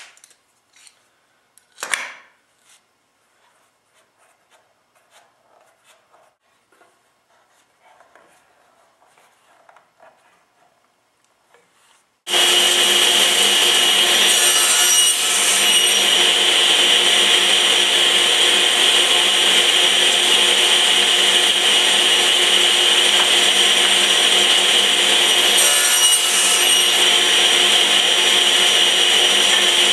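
Table saw running with a steady whine, switched into the sound abruptly about twelve seconds in. Before that there are faint clicks of wood being handled and one knock.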